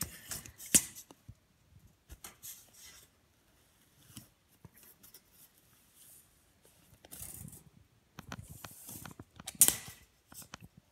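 Metal tape measure being handled: scattered clicks and rattles from the blade and case, with a sharp click about a second in and another near the end, and short sliding rustles shortly before the end.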